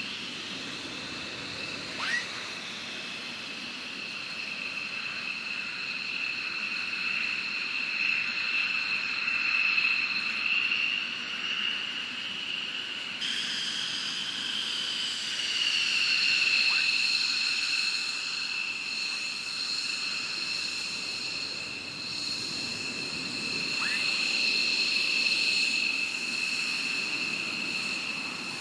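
F-15E Strike Eagle twin jet engines running at idle on the taxiway: a steady high-pitched turbine whine over a low rumble. The whine drifts slightly in pitch and shifts suddenly about halfway through.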